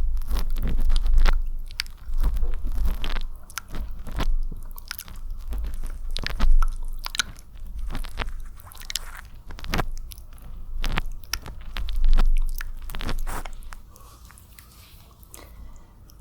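Close-miked wet ASMR mouth sounds: a rapid, irregular run of sharp smacks and clicks, growing much quieter near the end.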